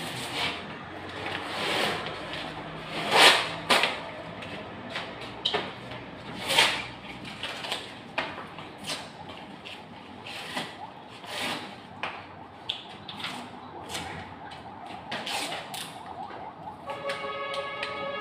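Wallpaper being peeled and torn off a wall: a series of short, rasping rips and scrapes at irregular intervals, the loudest a little past three seconds in. Near the end a steady tone of several pitches comes in.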